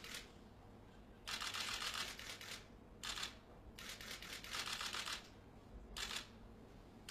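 Press cameras' shutters firing in rapid continuous bursts, on and off, some bursts over a second long with short gaps between them.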